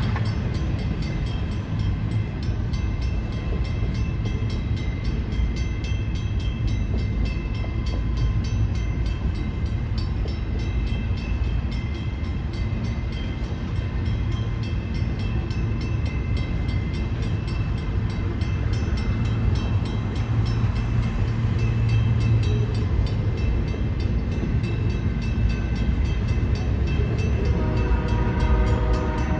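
Train rolling past with a steady, loud rumble of wheels and cars on the track. A train horn starts sounding near the end.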